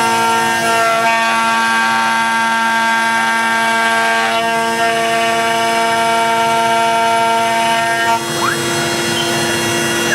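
CNC router carving a hardwood Karri neck blank: a steady spindle whine with several stepper-motor tones that switch pitch as the axes change direction, and a brief rising whine near the end.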